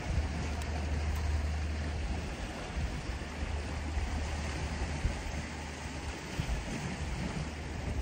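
Steady low wind rumble on the microphone over a constant hiss of sea water.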